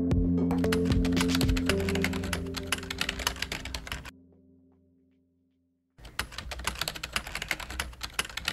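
Typing sound effect of rapid key clicks over background music that fades away. The clicking stops about four seconds in and starts again after a silence of roughly two seconds, this time without music.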